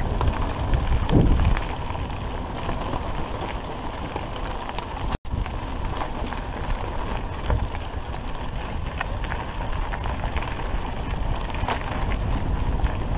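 Steady rush of wind on the microphone mixed with mountain bike tyres rolling over a stony gravel track, with scattered clicks and knocks as the bikes jolt over stones. The sound cuts out for an instant about five seconds in.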